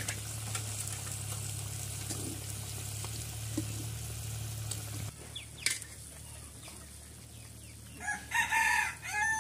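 Curry bubbling and sizzling in a black iron kadai: a steady fine hiss with small pops for about five seconds. Near the end a rooster crows loudly.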